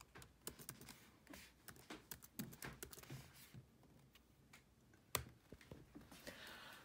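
Faint typing on a laptop keyboard: a quick run of key clicks over the first three seconds or so, then a lone sharper click about five seconds in.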